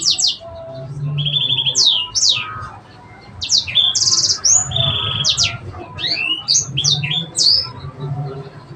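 Sanger songbird singing a fast, varied song: quick whistled sweeps, mostly falling, mixed with buzzy trilled notes, in phrases with only brief pauses, the rich phrasing that keepers call cengkok.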